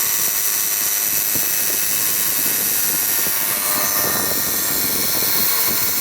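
A 2017 Subaru Forester's engine running with a steady, loud mechanical noise from its air-conditioning compressor, which the owner takes for a broken compressor.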